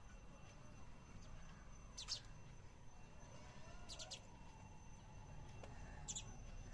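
House sparrows chirping faintly: a quick, high chirp about every two seconds, three in all, over a low steady background rumble.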